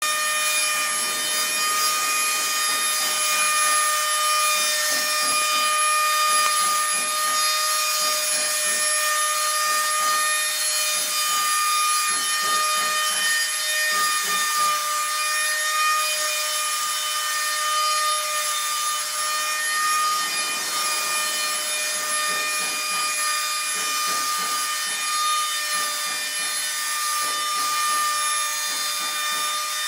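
Electric woodworking machine running steadily with a high-pitched whine over a hiss, with wood being worked on it.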